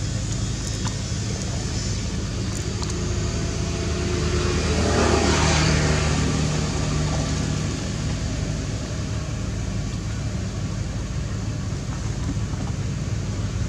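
Steady hum of a motor vehicle's engine running, swelling louder for a couple of seconds about five seconds in, then easing back.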